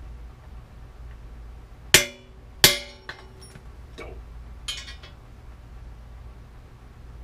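A hammer striking metal on a bicycle frame, driving a bearing cup in without a press tool: two hard clangs that ring briefly, then a few lighter knocks.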